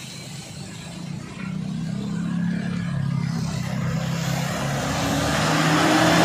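A motor vehicle approaching on a wet road: a low engine hum from about a second in, with tyre hiss growing steadily louder toward the end.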